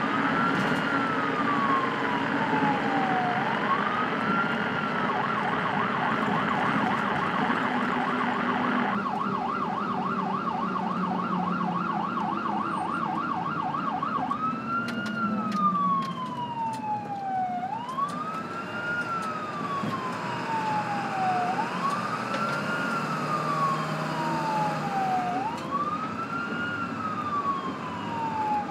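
Emergency vehicle siren sounding a slow wail, each rise and fall taking about four seconds, switching to a fast yelp for about ten seconds from roughly five seconds in, then back to the wail. A second, fainter and higher-pitched wail runs alongside in the second half, over a low rumble.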